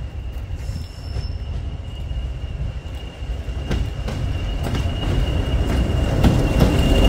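A pair of Class 20 diesel locomotives with English Electric engines approaching and passing with a passenger train: a low engine rumble swells steadily louder, peaking as the leading locomotive draws level near the end. A steady high whine runs throughout, with scattered clicks from the wheels.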